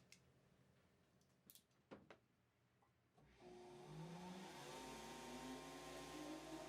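A few light clicks, then about three seconds in an electric motor switches on and spins up, its whine rising in pitch as it comes up to speed. It is typical of a shoe-repair grinding machine being started for sanding the sole.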